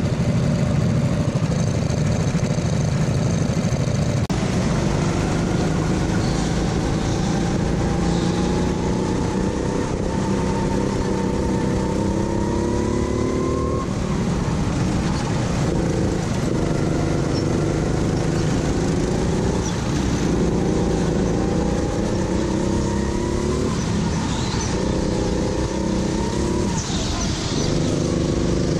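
Racing go-kart engine running hard, its pitch climbing in long rises along the straights and dropping off sharply several times as the throttle is lifted for corners.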